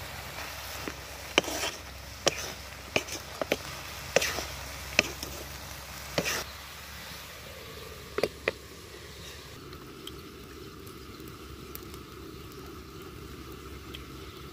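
A wooden spoon stirring frying mixed vegetables in a steel kadhai, knocking against the pan in a run of sharp clacks. Two last clanks come about eight seconds in, as the pan is covered with a domed aluminium lid. After that only a steady background hiss remains.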